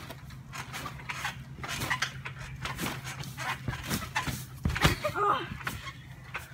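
Bouncing and landings on a trampoline mat: a series of short thumps spread through, with a brief vocal cry about five seconds in.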